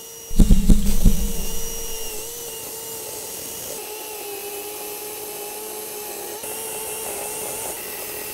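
Greenworks battery-powered electric chainsaw running at a steady, even whine, after a few loud knocks in the first second.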